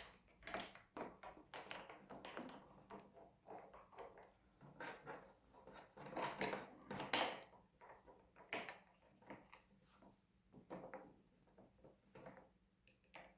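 Scattered light clicks, taps and rustles of hands routing and fitting motorcycle throttle cables at the handlebar, in irregular short bursts, a few louder knocks around the middle.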